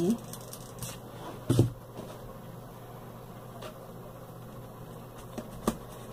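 A hot glue gun set down on the tabletop with a dull knock about a second and a half in, then quiet handling as lace is pressed onto a straw hat, with a sharp click near the end over a steady low hum.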